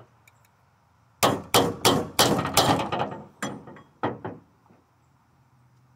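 Sharp metallic clanking and banging on a metal chandelier as a stuck end cap is worked loose: a quick run of about eight strikes starting about a second in, then a few more spaced out before it stops.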